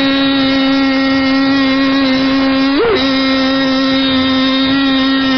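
A single steady tone held on one pitch, with a brief upward bend about three seconds in.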